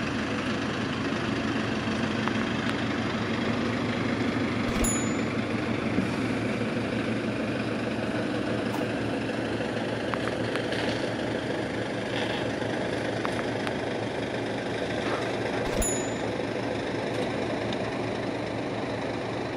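Diesel engine of a Liebherr LTM 1100-5.2 all-terrain mobile crane running steadily while it lifts. Two short knocks come through, about five seconds in and again about sixteen seconds in.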